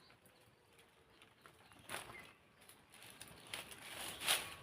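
Quiet rural outdoor ambience with a faint bird chirp about two seconds in and a few soft rustles, the loudest of them near the end.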